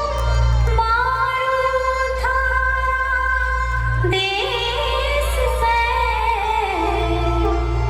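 Folk song accompanying a Bhavai dance: a woman's voice sings long, held notes that slide between pitches over a steady low bass.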